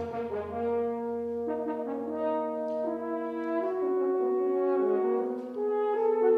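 Brass choir playing soft sustained chords, the held notes shifting to new harmonies every second or two as the parts move.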